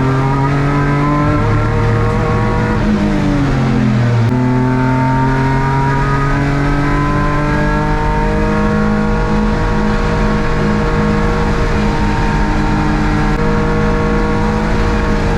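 S54 3.2-litre inline-six of a BMW E36 race car running hard on track. The engine note sags for about a second, then picks up and climbs steadily through a long pull, over road and wind noise.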